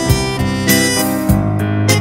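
Instrumental background music with a steady beat under a sustained melody.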